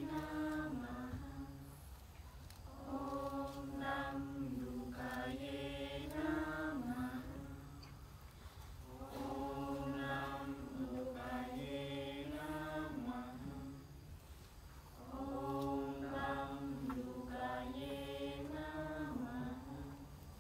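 Voices chanting together in slow, drawn-out phrases, each a few seconds long, with short pauses for breath between them.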